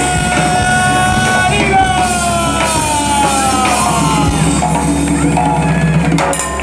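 Live band music heard from the crowd: one long held note that, about a second and a half in, slides slowly downward, over a steady backing with drums.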